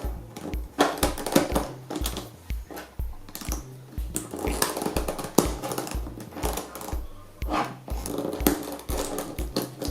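Background music with a steady beat and held tones over it.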